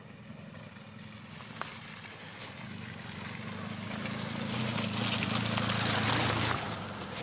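Motorcycle engine riding up a muddy track toward and past, growing louder to a peak about five to six seconds in, then dropping away.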